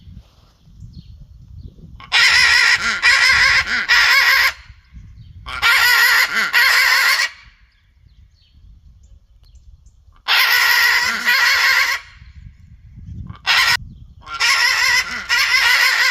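A parrot giving loud, drawn-out, wavering screeches in a series: four long calls of one to two seconds each and one short call, with pauses of a few seconds between them.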